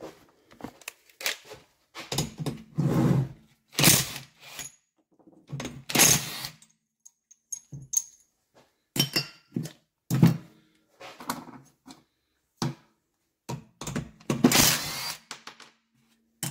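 Irregular metallic clanks, knocks and rattles of hand tools and engine parts being handled while a 50 cc scooter engine is taken apart, with a few clinks that ring briefly.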